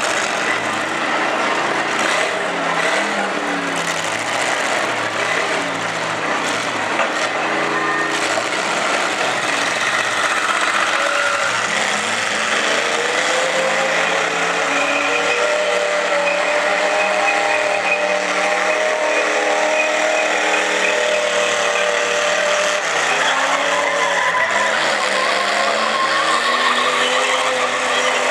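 Several demolition-derby cars' engines revving hard together, their pitch rising and falling as they drive and ram, over the noise of spinning tyres. Now and then metal bodies crash together.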